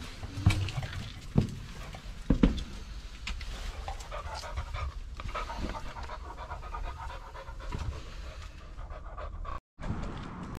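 A dog panting rapidly close to the microphone, with a few sharp knocks and bumps in the first couple of seconds.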